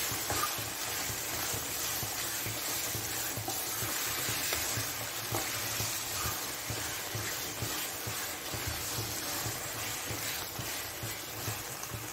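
Mutton pieces in green masala sizzling in oil in a non-stick frying pan while a spatula stirs and scrapes them round, a steady sizzle with scattered scrapes. The liquid has cooked off and the meat and masala are frying in their own released oil (the bhuna stage).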